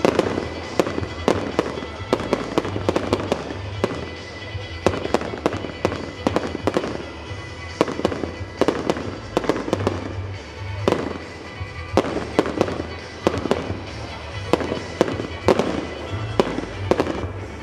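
Fireworks display: shells bursting in rapid, irregular succession, several sharp cracks and bangs a second. Music plays underneath.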